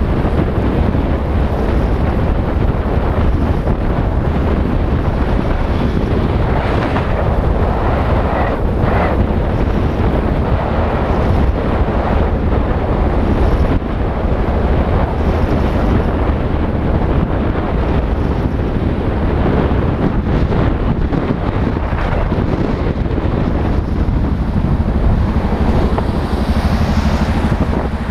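Heavy wind buffeting on the microphone over a motorcycle's running engine, riding at speed in traffic. Near the end the engine's steady low note comes through more plainly.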